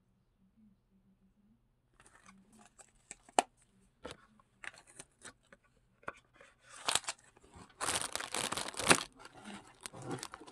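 Packaging and products being handled: near silence at first, then scattered clicks and taps from about two seconds in, one of them sharp, and louder crinkling and rustling of wrapping near the end.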